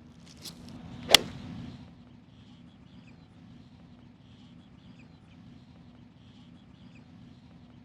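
A golf club strikes a ball once about a second in, a single sharp crack. It is followed by a faint steady background with small high chirps.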